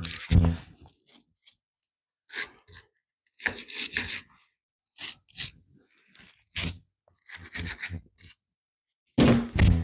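Short, separate bursts of scraping and rubbing, about a dozen in all with abrupt stops between them: hand work on metal parts, such as freeing steel transmission cooler lines.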